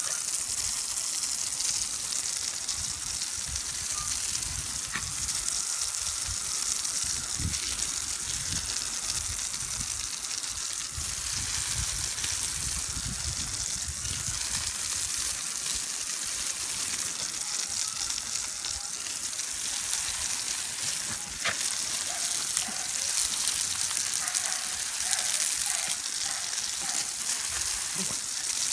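Garden hose spraying a jet of water onto grass: a steady hiss and spatter of water.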